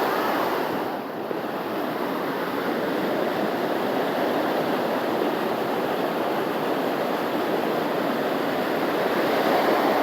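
Steady rush of a waterfall, a continuous noise of falling water that grows a little louder near the end.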